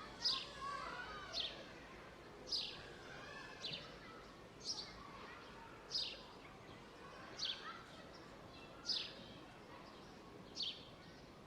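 Birds calling in a park: one bird repeats a short, high, falling chirp about once a second, with softer twittering from other birds beneath it over a faint steady background hiss.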